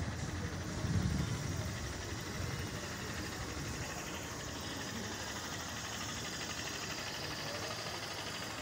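Street traffic noise: a car engine running close by, loudest about a second in, over a steady hiss.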